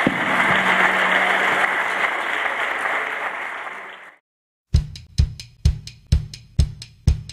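Audience applauding, fading out about four seconds in. After a short silence, music starts: a drum beat with a heavy kick drum about twice a second.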